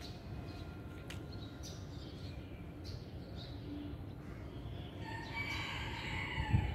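Faint small-bird chirps over a low rumble, then a rooster starts crowing about five seconds in, running on to the end.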